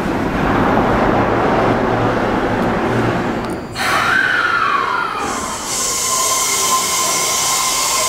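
Osaka Metro 400 series electric train with Hitachi hybrid SiC VVVF inverter. First comes the rushing run noise of the train coming in, then, about four seconds in, the inverter whine of a train moving off: a tone that falls in pitch, settles into a steady high whine, and a fresh rising tone near the end as it picks up speed.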